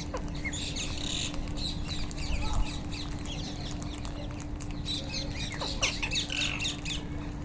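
A flock of rose-ringed parakeets (Indian ringnecks) calling, many shrill squawks and chirps overlapping without a break.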